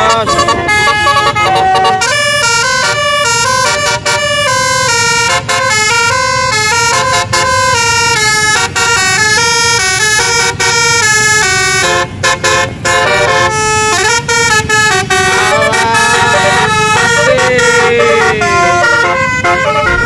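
Bus telolet horn (Basuri multi-tone air horn) playing a fast stepping melody, the tones changing several times a second, with a pitch sliding downward near the end, over the low rumble of engines.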